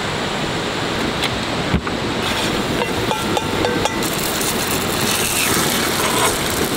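Steady rushing noise, even throughout, with no distinct events.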